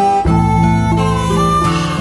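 Instrumental background music: a melody of held notes over a low bass part, with the bass coming in just after the start.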